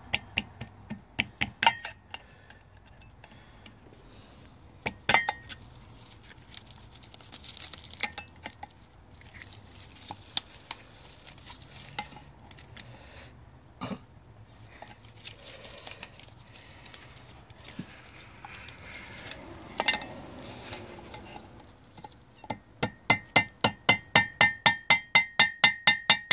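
Metal pliers tapped with a mallet to bend the locking tabs of a propeller tab washer down against the prop nut: scattered sharp metallic taps and clinks, then near the end a quick run of ringing taps about four a second.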